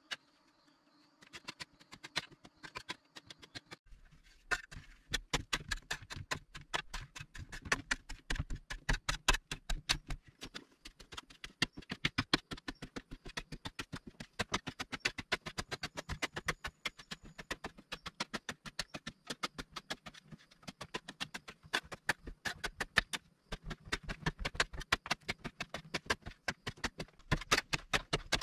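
A hand digging tool chopping and scraping into dry, compacted earth in quick, steady strokes, several a second, with a brief pause late on.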